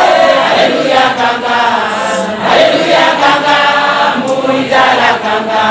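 Church congregation singing a hymn together, many voices at once in a chant-like melody, loud and steady.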